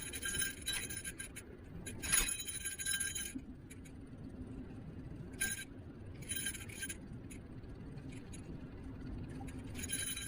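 Niu KQi3 Pro electric scooter in motion, with a steady low rumble and repeated bursts of metallic jingling and rattling, about a second each. There is a single sharp knock about two seconds in.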